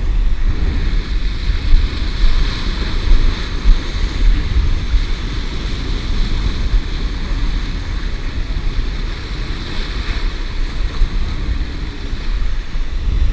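Small waves washing and splashing against granite jetty boulders, a steady hiss of surf, with wind rumbling on the microphone.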